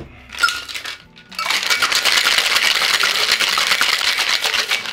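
Ice rattling hard inside a metal Boston shaker as a sour-style cocktail is shaken: a few light knocks in the first second, then a fast, continuous clatter for about three and a half seconds that stops near the end.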